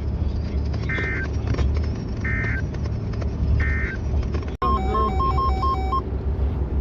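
Emergency Alert System end-of-message data tones: three short buzzy digital bursts about a second and a half apart, over steady road noise from the moving car. After a brief dropout, a quick run of alternating electronic beeps follows.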